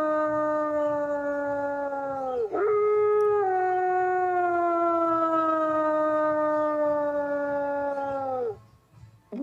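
Wolf howling: one long, slowly falling howl that drops away about two and a half seconds in, then a second long howl that slowly sinks in pitch and trails off near the end. A brief pause follows before another howl begins.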